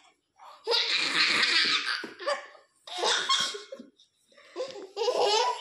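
A baby laughing in several bursts of giggles, the longest about a second in.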